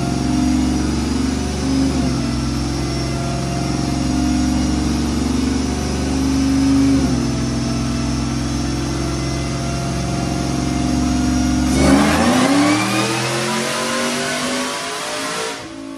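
LT4-swapped OBS Chevy truck's supercharged V8 running on a chassis dyno, holding a steady note in sixth gear. About twelve seconds in the note changes abruptly into a fast sweep in pitch, louder, and it eases off just before the end.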